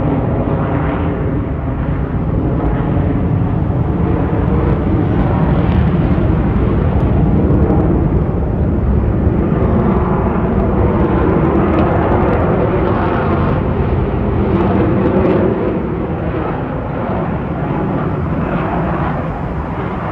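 Jet engines of a Sukhoi twin-engine fighter flying a display pass overhead, making a continuous loud jet noise. It grows slightly louder in the middle and eases off somewhat after about fifteen seconds.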